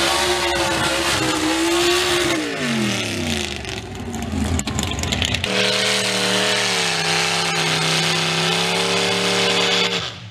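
Mud-drag race engines at full throttle. A steady high rev drops away about two and a half seconds in as the driver lifts off. After a cut, a lifted Jeep Wrangler's engine is held at high revs as it churns through the mud pit, then falls off near the end.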